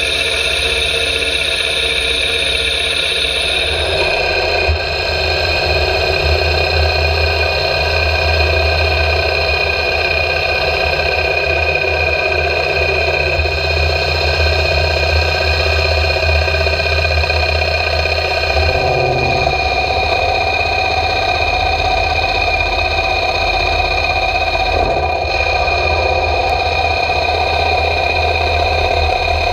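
Hapfo CNC 7000 woodturning lathe running as its cutter turns a sapele blank: a loud, steady machine whine over a low hum, changing in tone a few times as the cut moves along the workpiece.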